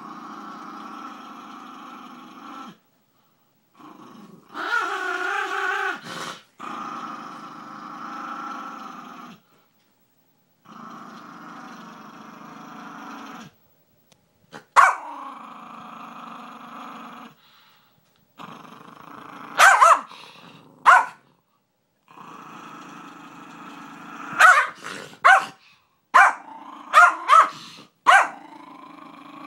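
Small dog growling in long drawn-out stretches separated by brief pauses, breaking into sharp barks: one about halfway through, two a little later, and a quick run of several near the end, the barks being the loudest sounds.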